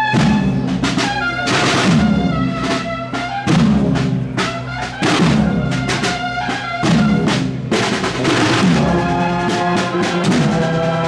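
Brass band with drums playing a march: held brass notes over a regular drumbeat.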